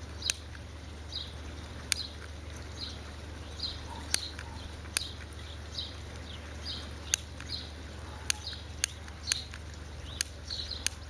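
A Bic lighter being flicked over and over, its flint wheel giving sharp, irregular clicks, failing to light. Short high chirps repeat about once a second behind it.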